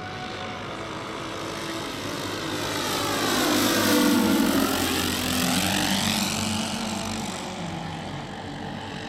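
Giant-scale radio-controlled Boeing B-17 model's four propeller engines droning in a low flyby: the sound swells to its loudest about four seconds in, then drops in pitch and fades as the plane passes.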